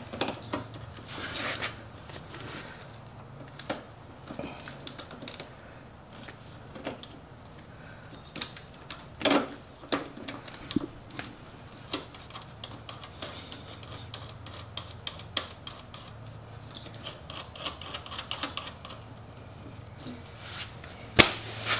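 Ratchet wrench clicking in short runs, with scattered metal clinks, as the clutch cover bolts are tightened down over a freshly sealed gasket. A low steady hum runs underneath.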